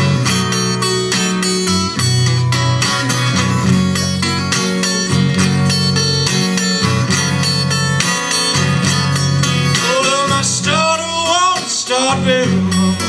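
Acoustic guitar with a capo, a 12-fret model, playing a blues introduction: steady bass notes under plucked treble notes. About ten seconds in, a wordless voice briefly comes in over the guitar.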